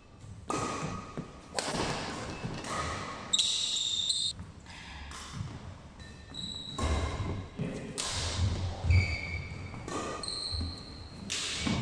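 Badminton doubles rally on a wooden court: a string of sharp racket strikes on the shuttlecock, sneakers squeaking in short high chirps, and heavy footfalls thudding on the floor, mostly in the second half, in a large hall.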